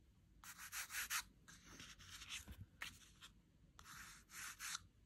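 A thumb rubbing across a sample of grey waterproof screen fabric: about five short, faint scraping strokes.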